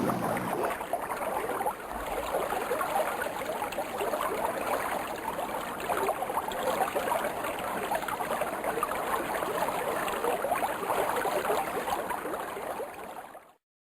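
Flowing water, a stream or brook running steadily, added as a sound effect; it fades out near the end.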